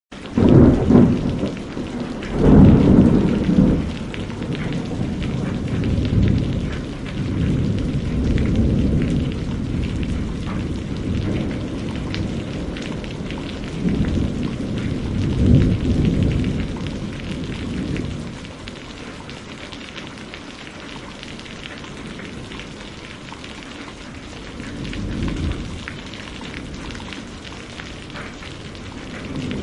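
Heavy rain pouring steadily, with thunder rumbling several times: loud rolling rumbles in the first half and a softer one near the end.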